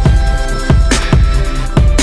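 Electronic background music with a steady, heavy bass beat and sustained synth tones.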